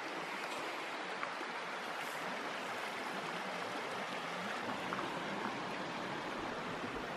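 Flowing river water rushing steadily, an even hiss with no change in level.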